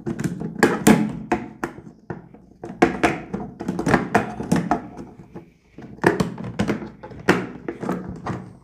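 Plastic latch and lid of a Plano Edge 3700-size tackle box being worked by hand: a string of irregular plastic clicks, snaps and knocks as the latch is opened and closed.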